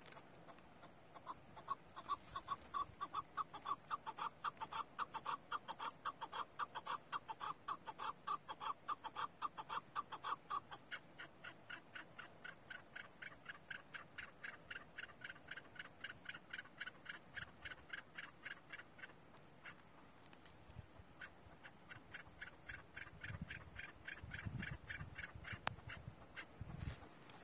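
Chukar partridges calling: a long run of rapid clucking notes, about five a second. It starts lower-pitched, then a higher-pitched series runs on with a pause. A few low thumps come near the end.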